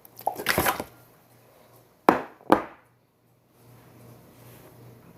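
Handling noise: a short clatter, then two sharp knocks about half a second apart as hard objects are set down on a hard surface.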